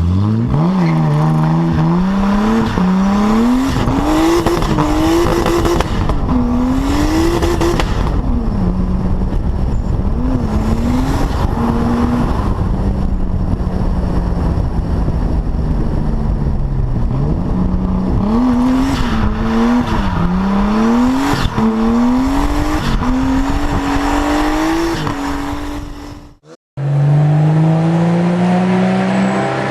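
Tuned performance car's engine accelerating hard through the gears: the note climbs, drops back at each shift and climbs again, then holds steady for a few seconds before a second run of climbing shifts. It cuts off suddenly about 26 seconds in, and another engine starts revving up.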